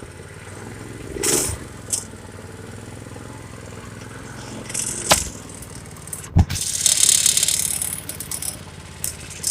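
Small go-kart engine running steadily at idle, with rattling and clattering over it. A loud thump comes about two-thirds of the way through, followed by about a second of hissing noise.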